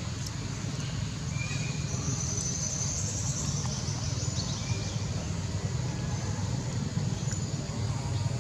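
Outdoor background noise: a steady low rumble like distant traffic, with faint insect buzzing and a couple of short chirps.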